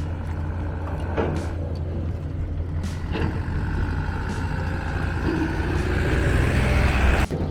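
Road traffic with a heavy vehicle such as a truck: a steady engine rumble with passing tyre and engine noise growing louder toward the end, then cutting off suddenly.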